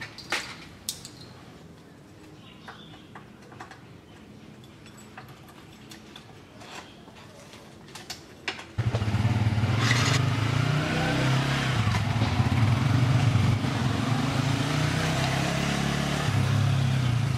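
Scattered small clicks and knocks, then about halfway through a motorcycle engine comes in suddenly and runs loudly as the bike rides off. It cuts off abruptly at the end.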